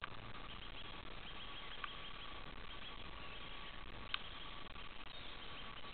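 Faint outdoor background: a steady hiss with a thin high chatter, and two short clicks about two and four seconds in, the second one louder.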